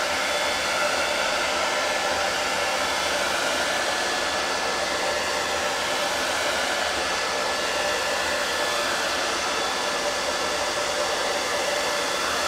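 Steady rush of water from a sink faucet, rinsing chalk paste out of a mesh screen-printing transfer.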